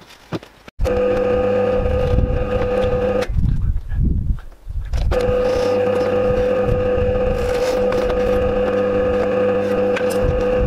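SIP pillar drill (bench drill press) running with a steady motor hum while its bit bores holes through plywood. The hum breaks off abruptly for a couple of seconds a few seconds in, then carries on steadily.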